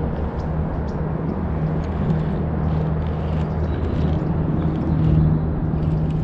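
A steady low motor drone, with a second tone an octave above it, swelling slightly about five seconds in.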